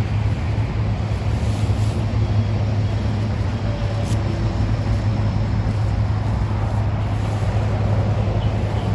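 Steady low rumble with an even hiss over it: continuous outdoor background noise.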